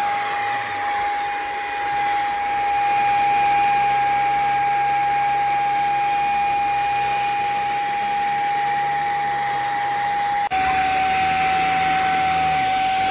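JPHYLL mattress vacuum running: a steady high motor whine over rushing air. About ten seconds in it breaks off abruptly and picks up again at a slightly lower pitch.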